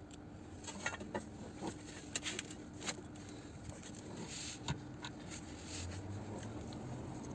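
Scattered light metallic clicks, taps and scrapes of tools and car parts being handled under a car, over a faint steady hum.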